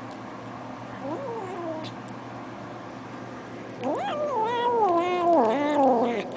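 Domestic cat vocalising: a short rising-and-falling meow about a second in, then a long, louder yowl with wavering pitch lasting over two seconds that cuts off near the end.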